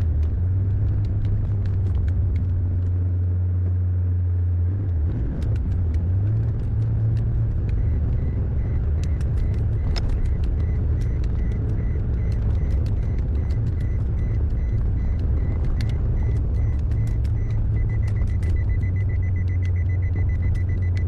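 Heavy diesel engine running steadily, its low note shifting about five seconds in, with scattered clicks and rattles. From about eight seconds in, a repeating high-pitched warning beep sounds, pulsing faster near the end.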